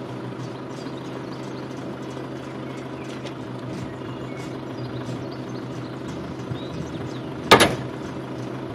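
Vehicle engine idling steadily, and about three-quarters of the way through a single sharp metallic clack as the caravan's AL-KO coupling head snaps shut onto the car's tow ball.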